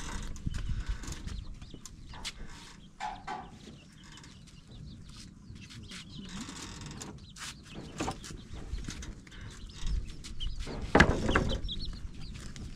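Wooden planks knocking and clattering as they are stacked onto a motorcycle, with chickens clucking and chicks peeping. The loudest moment is a short burst of calls near the end.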